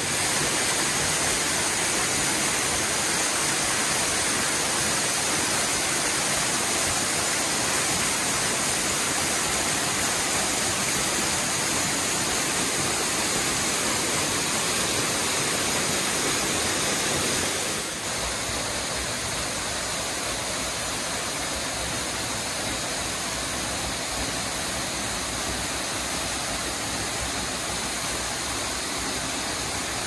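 Small mountain waterfall cascading over rock ledges: a steady, even rush of falling water. About 18 seconds in it drops slightly in level and takes on more low rumble.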